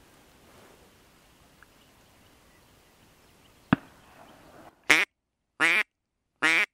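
Mouth-blown duck call sounded three times, each a short quack of about a quarter second, with complete silence between them, after a single sharp click.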